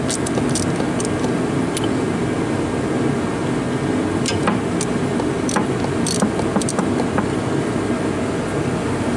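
An engine running steadily, with scattered light clicks over it.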